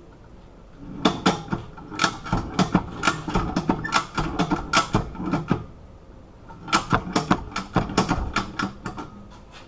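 Ratchet strap being cranked tighter in two runs of sharp clicks, winding up the pressure on bolt cutter jaws clamped on a disk padlock's shackle.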